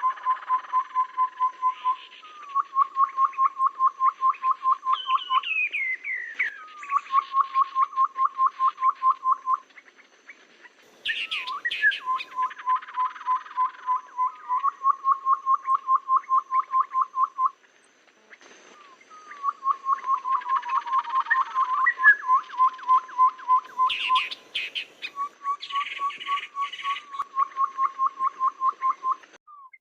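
Tepus babbler lure calls: repeated runs of rapid, even piping notes at one pitch, about six a second, each run lasting two to three seconds. Higher chirps and squeaky calls come between the runs.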